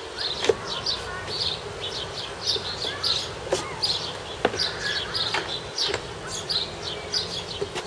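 A small bird chirping over and over, with a few sharp clicks and knocks from an outboard motor's plastic cowling being unlatched and lifted off.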